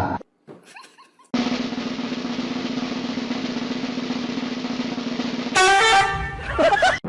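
A drum roll lasting about four seconds, followed by a loud pitched sound whose pitch bends near the end.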